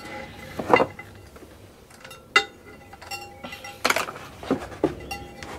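Metal pliers clicking and clinking on steel wire as the wires are twisted tight around a bonsai's root ball. Scattered sharp clicks and knocks with brief ringing, the loudest under a second in and about two and a half seconds in, then a cluster near four seconds.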